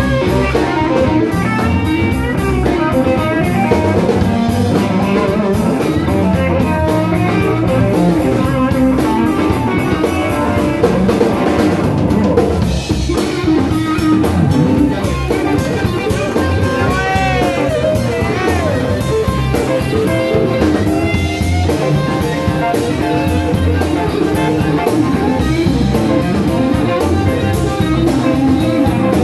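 Live blues band playing an instrumental break: electric guitars, electric bass and drum kit. The lead guitar bends its notes up and down in the middle of the passage.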